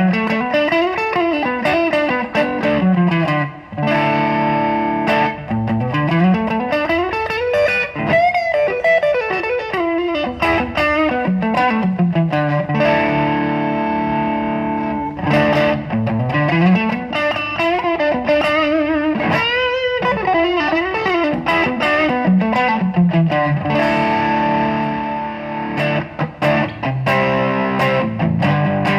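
Electric guitar played through a TC Electronic El Cambo overdrive pedal, giving a distorted tone. Long slides up and down the neck alternate with held chords.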